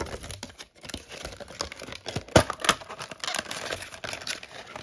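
Clear plastic action-figure packaging crinkling and clicking in the hands as it is pulled out of its tube, with one sharp snap a little over two seconds in.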